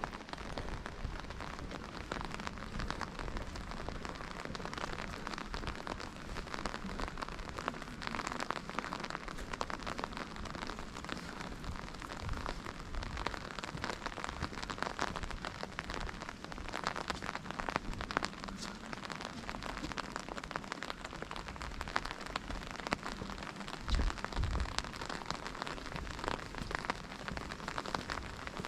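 Steady rain falling, a dense pattering of many small drops, with one low thump near the end.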